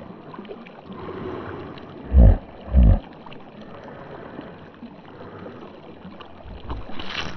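Small stream running, with water moving around a hooked trout on the fly line. There are two short, loud, low thumps, one a little after two seconds in and one near three seconds in.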